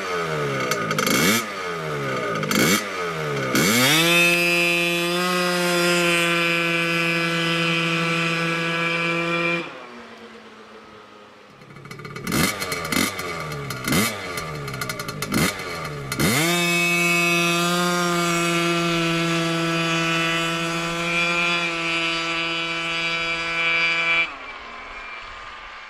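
86cc big-bore scooter engine blipped several times in quick revs on the line, then held at a steady high pitch as the scooter pulls away from a standing start. This happens twice. Each run stops abruptly at the cut.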